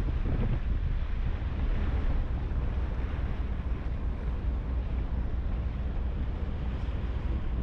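HADAG harbour ferry under way: wind buffeting the microphone over a steady low rumble and the wash of water along the hull.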